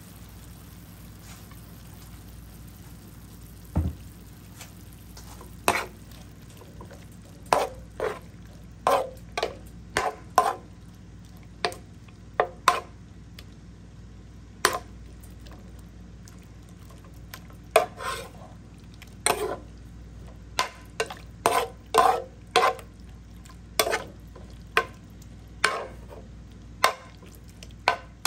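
Metal ladle scraping and clanking against a wok as sliced beef in a thin sauce is stir-fried, in sharp irregular strokes of one or two a second starting about four seconds in. A faint steady sizzle of the frying meat and sauce runs underneath.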